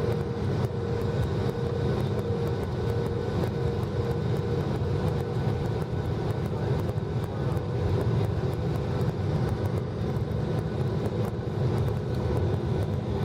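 Boeing 737-800 cabin noise on descent: a steady, low roar of airflow and the CFM56 engines heard from inside the passenger cabin. A faint steady hum sits on top and fades out about three seconds in.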